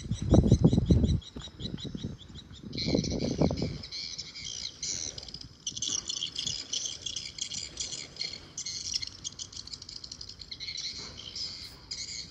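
Birds chirping and twittering steadily in a dense high chatter that grows fuller about three seconds in. Two short bursts of low rumbling noise stand out as the loudest sounds near the start.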